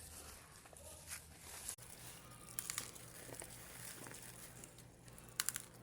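Scattered light crinkling and crackling, with a few short sharp clicks, a cluster of them near the end, over a faint low hum.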